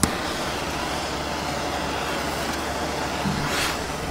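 Hand-held gas torch on a yellow fuel cylinder burning with a steady hiss, starting abruptly with a sharp click and swelling briefly near the end.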